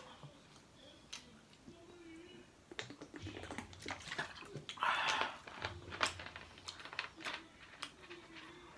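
Close mouth sounds of someone drinking soda from a 2-litre plastic bottle: gulps, lip smacks and clicks of the bottle being handled, with a couple of short hums and a louder breathy gasp about five seconds in.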